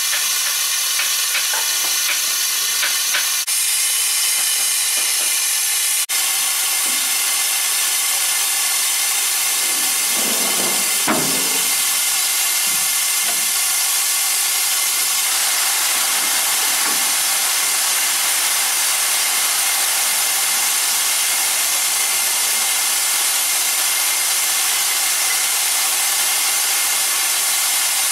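Steam locomotive venting steam: a steady, loud hiss with no break, and a short lower sound about eleven seconds in.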